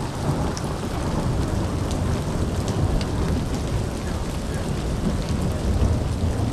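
Steady rain falling on grass, pavement and trees, with scattered drops ticking close by and a low rumble underneath.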